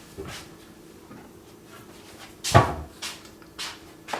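Kitchen cupboard and items in it being handled: a few knocks and clunks, the loudest about two and a half seconds in.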